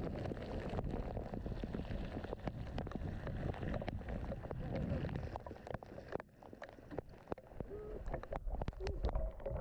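Electric skateboard wheels hissing through standing water on a rain-soaked road, with raindrops ticking on the camera. About six seconds in the hiss stops, leaving scattered drips and ticks.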